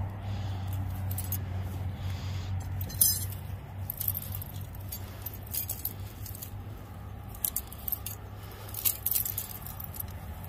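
Steel trapping gear jingling and clinking in several short bursts over a steady low hum.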